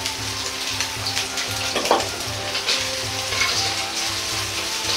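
Diced pork belly sizzling as it shallow-fries in its own rendered fat in a wok over high heat, being crisped. A ladle stirs and scrapes against the wok a few times, the sharpest about two seconds in.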